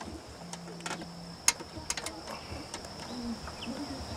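Quiet open-air lull with a faint steady high whine, a few sharp clicks about a second and a half to two seconds in, and a dove's low coo about three seconds in.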